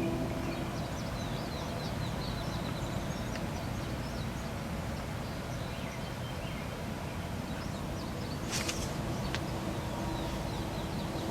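Outdoor woodland ambience: many small songbirds chirping and trilling over a steady low rumble of wind and background noise, with one brief sharp noise about eight and a half seconds in.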